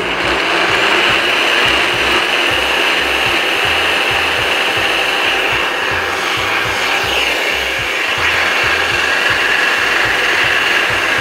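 NutriBullet Balance personal blender running steadily at full speed, its blade churning fruit, cashews and kefir into a smooth smoothie.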